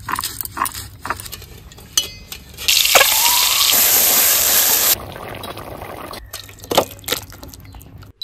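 Water poured into a metal cooking pan for about two seconds, with a faint rising pitch as it fills, then cutting off abruptly. Short clinks and knocks of kitchen utensils come before and after.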